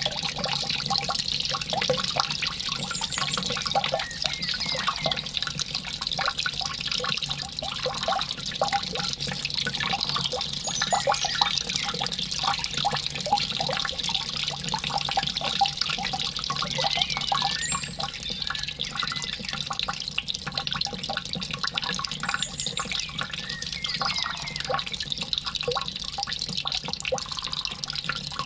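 Steady trickling and bubbling running water, an even splashing hiss with a dense scatter of small droplet sounds that never pauses.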